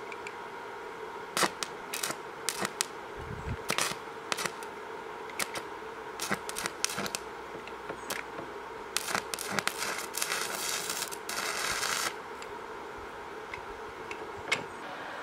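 Stick (MMA) welding arc being struck with a rod on rusty steel: a run of sharp snaps and crackles as the electrode touches and sparks, then about three seconds of continuous arc crackle that cuts off abruptly.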